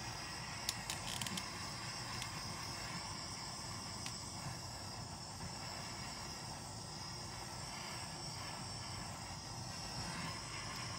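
Steady background hiss with an even, high insect-like chirring. A few light clicks come about a second in.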